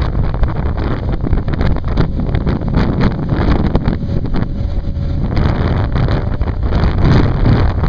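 Loud, gusty wind noise on the microphone of a camera riding on a moving motorcycle, with the motorcycle running underneath it.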